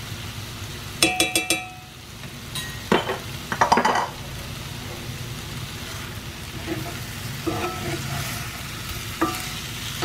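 Chicken drumsticks and onions sizzling in a cast iron skillet while being stirred and turned. About a second in comes a quick run of ringing metallic clinks from the metal spoon against the pan, followed by scraping stirring strokes.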